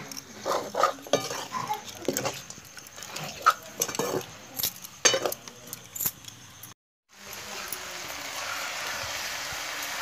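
A metal spoon scraping and clinking against a wok as goat meat is stirred, over a low sizzle. After a brief cut there is a steady sizzle of frying.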